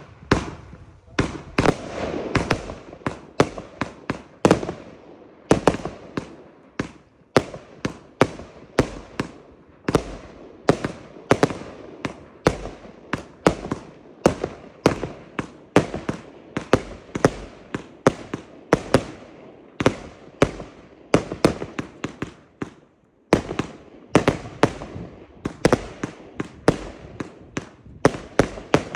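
Pyrocentury "Gold Blauer Himmel" consumer fireworks compound cake firing shot after shot, a quick run of sharp launch and burst bangs at about two a second. There is a short break about three-quarters of the way through, and then the shots go on.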